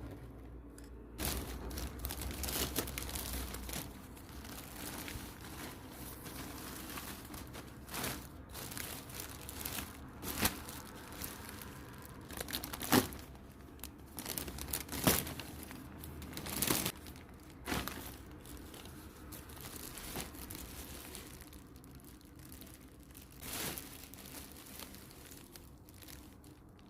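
Plastic or paper packaging being handled: crinkling and tearing with irregular sharp crackles and clicks.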